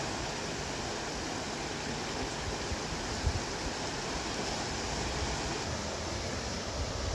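Fast-flowing river rushing over rocks: a steady, even rush of water, with a brief low thump about three seconds in.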